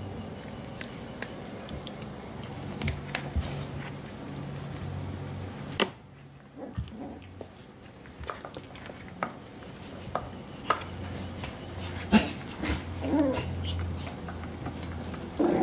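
Seven-week-old Coton de Tulear puppies moving about and playing, with scattered light taps and clicks over a low steady hum. Near the end a puppy gives a couple of short whines that fall in pitch.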